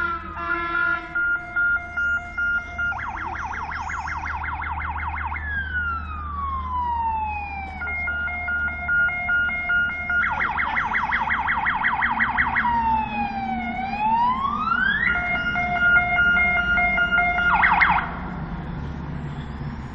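Fire engine's electronic siren sounding while it approaches. It switches between a steady two-tone, a fast warble, long falling sweeps and quick up-and-down sweeps, every two to three seconds, then cuts off suddenly near the end. A low engine rumble runs underneath.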